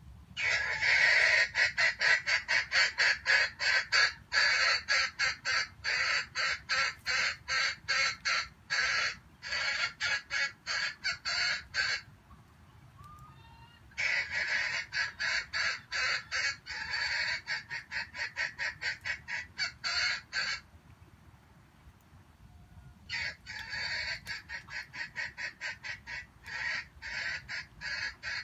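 Chicken clucking in fast runs of short, sharp calls, about four a second, in three long bouts with pauses of about two seconds between them.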